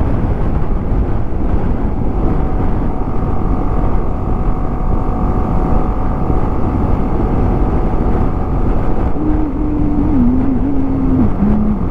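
BMW G 310 GS single-cylinder engine running at road speed under heavy wind rush on the helmet microphone. From about nine seconds in, a clear engine note rises out of the noise and drops in pitch in a few steps.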